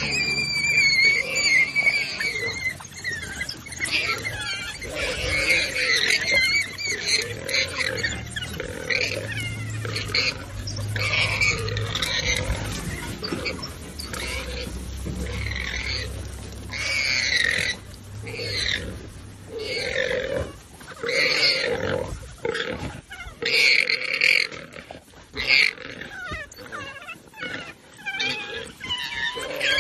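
A warthog squealing and screaming over and over in distress as African wild dogs attack and tear at it, the cries rising and falling in pitch.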